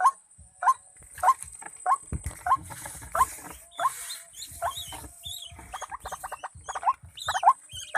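White-breasted waterhen (ruak-ruak) calling: a steady series of short, rising croaking notes, about two a second. Past the middle a quicker run of notes and higher-pitched notes join in.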